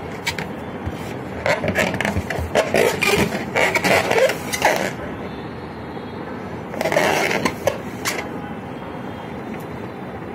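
Inflated latex balloon squeaking and rubbing as it is squeezed hard between arms and chest, in uneven spells through the first half and again briefly about seven seconds in; it does not burst.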